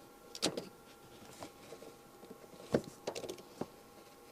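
A few scattered sharp clicks and knocks from a T50 Torx tool working the floor bolts under a Camaro's passenger seat: one about half a second in, then a quick cluster near three seconds.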